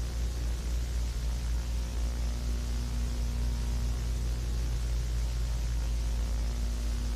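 Steady hiss and static with a constant low electrical hum from VHS tape playback, with no other sound over it.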